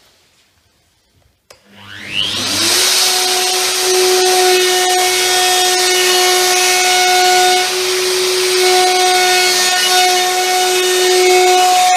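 Hitachi plunge router switched on with a click about a second and a half in, its motor winding up with a rising whine, then running at a steady high pitch as it cuts an arc through a board on a trammel.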